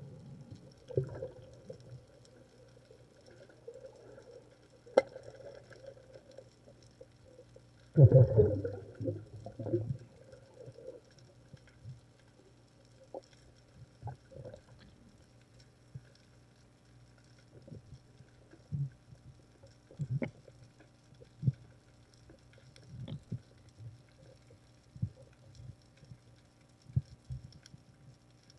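Muffled underwater sounds of a diver moving over a reef: scattered knocks and clicks, with a louder rumbling, gurgling burst about eight seconds in.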